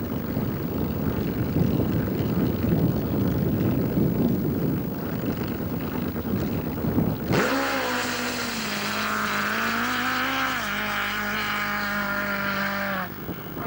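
Drag-racing motorcycle engine running loud and rough at the start line. About seven seconds in, the sound switches abruptly to a steady, high engine note that drops a little in pitch once and cuts off near the end.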